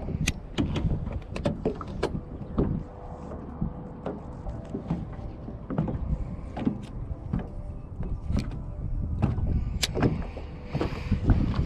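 Choppy lake water slapping against a small fishing boat's hull, with wind on the microphone, giving a low rumble and irregular knocks over a faint steady hum.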